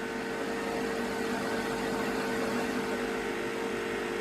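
Steady machine hum with a constant mid-pitched tone over an even hiss, unchanging throughout.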